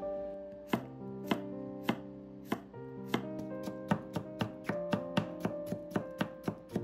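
Chef's knife chopping cucumber into thin strips on a wooden cutting board: a few separate cuts at first, then quicker, even strokes at about four a second. Soft background music plays underneath.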